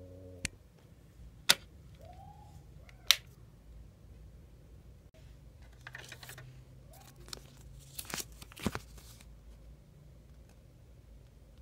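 A few sharp clicks as the thermal label printer is plugged in and switched on, then the printer's feed motor whirring as it prints and feeds out its self-test label. The paper is torn off with a short burst of crisp tearing near the end.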